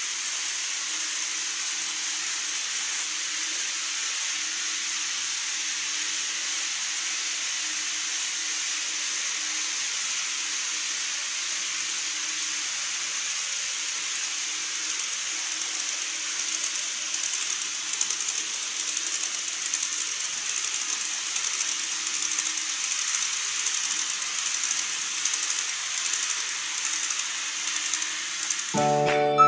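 N-gauge model trains running on the layout's track: a steady whir of the motors with a fine, fast rattle of wheels over the rails, growing louder in the second half as a train passes close. Music comes in right at the end.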